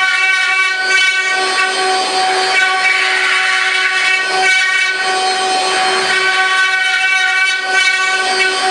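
Multi-spindle wood CNC router running, its spindles giving a steady high whine while the cutters carve wood, with the cutting noise swelling and easing every couple of seconds.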